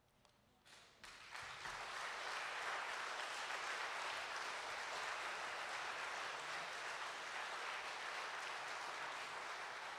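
Congregation applauding, starting about a second in and carrying on steadily.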